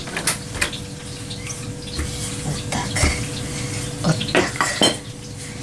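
Kitchen clatter: scattered light knocks and clinks of utensils against a table, a few sharper than the rest.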